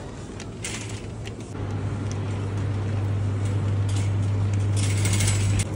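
Wire shopping cart being pushed across a supermarket floor, its wheels rolling and the basket rattling, with short crackles. A steady low hum runs underneath and grows louder about a second and a half in.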